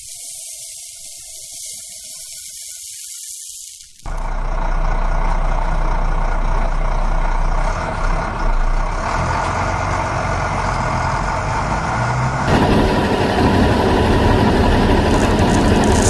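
A high hiss for the first few seconds, then a heavy truck engine sound starts abruptly about four seconds in and runs with a deep rumble, growing louder about twelve seconds in. The engine sound is laid over a toy dump truck, which has no engine of its own.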